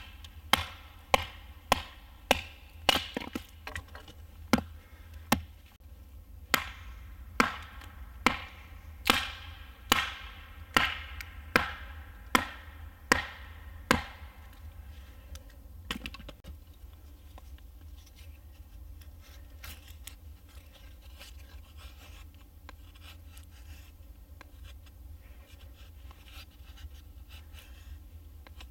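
Hatchet chopping a thin stick on a tree stump: about eighteen sharp blows, roughly one every 0.7 seconds, which stop about halfway through. After that comes only faint light scratching, a knife working a piece of wood.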